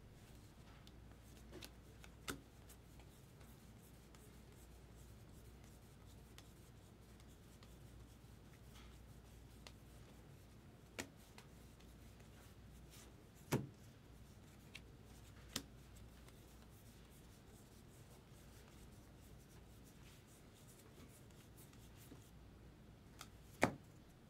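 Trading cards being handled on a table: soft rubbing and shuffling, with a handful of light, sharp taps and clicks as cards are flipped and set down, over a faint low hum.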